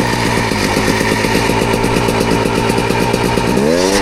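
Dirt bike engine running at a steady idle with a fast, even putter, then revving up about three and a half seconds in.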